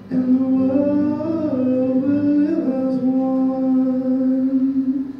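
A man singing one long held note into a microphone, the pitch wavering up briefly twice before it cuts off: the closing note of the song.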